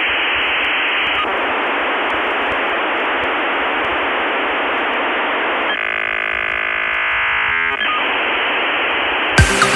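Steady static hiss like a radio tuned between stations. For about two seconds in the middle it gives way to a buzzing tone, and electronic music starts right at the end.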